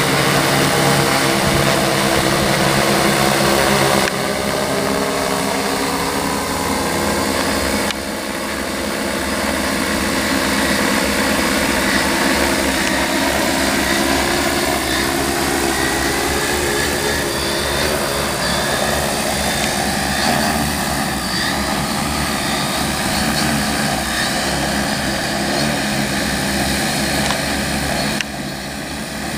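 Large six-rotor agricultural spraying drone with 75 cm propellers hovering, its rotors giving a steady multi-toned drone whose pitches drift up and down as the motors adjust to hold position.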